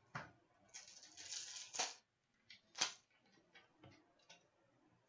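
Plastic wrapper of a hockey card pack crinkling and tearing for about a second, with sharp clicks and light taps of cards being handled.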